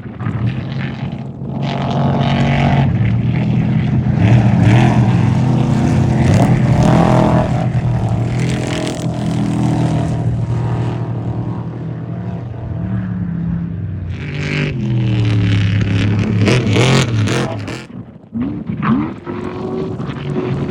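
Off-road race vehicle engines running hard and going by, their pitch rising and falling with throttle and gear changes. Near the end the sound briefly drops away, then an engine revs up again.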